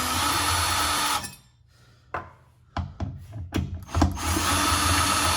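Power drill boring through sheet metal, running in two steady bursts: the first stops about a second in, and the second starts about four seconds in.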